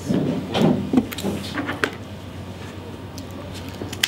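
A knife scraping and knocking against a whole sea bream on a cutting board: a run of scrapes and clicks in the first two seconds, then quieter handling. Near the end comes a sharp snip as kitchen scissors cut at the gills.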